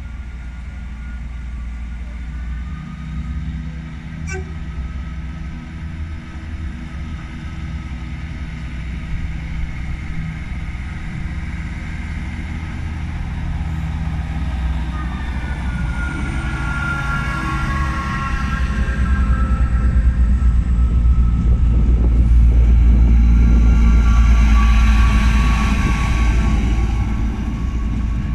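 A British Rail Class 158 diesel multiple unit pulls in alongside the platform. Its diesel engine and wheels make a steady rumble that swells as the train draws close and passes, then eases, and a high whining tone joins in as it comes near.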